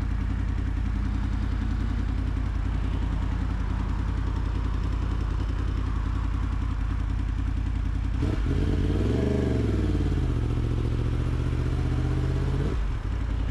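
Yamaha MT-10's crossplane inline-four engine running on the move, under a steady rush of wind noise. A little past halfway its note rises and falls in a short rev, holds steady for a couple of seconds, then cuts off suddenly near the end.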